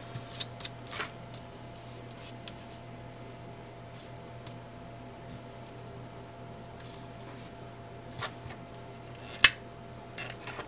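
Light clicks and taps of cut ribbon pieces being handled, then, about nine and a half seconds in, one loud sharp click as a stick lighter is sparked to heat-seal the cut ribbon ends.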